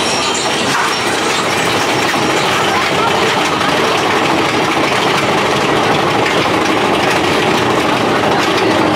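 Mine-train roller coaster climbing a chain lift hill: a steady rattling rumble from the lift chain and the train running on the track.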